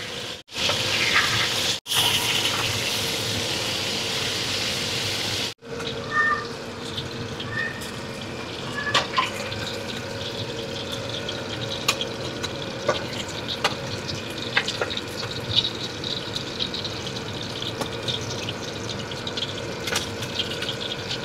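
Mackerel frying in hot oil in a wok: a steady sizzle, louder for the first few seconds and then softer, with light clinks of a metal spatula against the wok and plate as the fish are lifted out.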